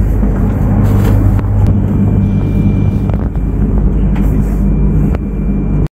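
Steady low hum and rumble inside a Shinkansen carriage, with a few light knocks.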